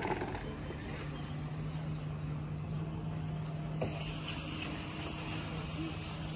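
A steady low engine hum over outdoor background noise, with a brief knock and a louder hiss coming in about four seconds in.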